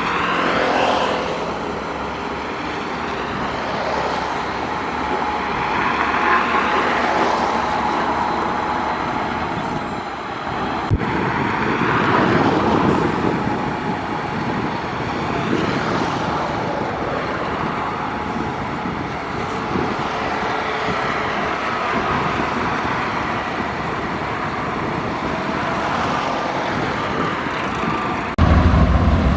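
Shantui bulldozer's diesel engine working under load as it pushes dirt, the sound swelling and easing every few seconds. Near the end it switches abruptly to a louder, deeper engine drone.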